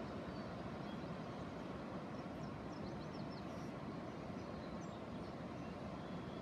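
Steady low rushing outdoor background noise, with a few faint high bird chirps about two and a half to three and a half seconds in.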